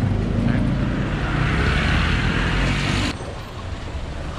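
Outdoor street ambience: a steady hissing wash, most likely fountain water splashing, over a low rumble. It cuts off abruptly about three seconds in, leaving quieter street noise.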